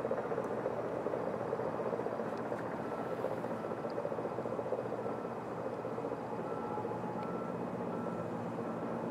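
Steady rumble of a vehicle engine with a reversing alarm that starts a few seconds in, beeping evenly a little faster than once a second as a vehicle backs up.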